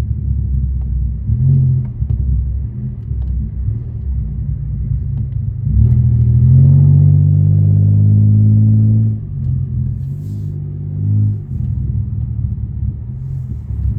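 Catless Pontiac Grand Prix GT's 3.8-litre V6 exhaust droning while driving, getting louder for about three seconds from about six seconds in as the car accelerates, then easing off.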